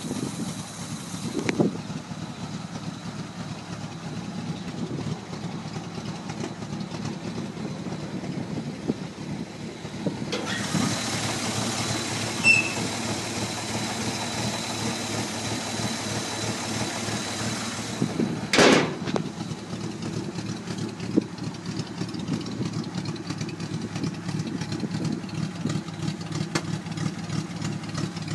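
1953 Dodge B-4B truck's flathead six-cylinder engine idling steadily. For several seconds in the middle it is heard up close at the open engine bay, with more hiss and clatter. A single thump comes about two-thirds of the way through.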